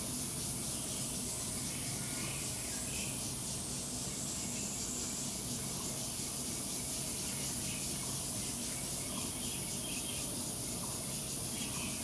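Steady high-pitched insect drone, with a few short faint chirps now and then.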